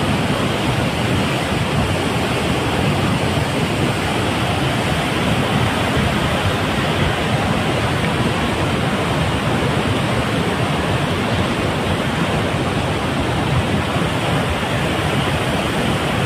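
Loud, steady rush of a swollen river in flood, muddy water churning past at full spate.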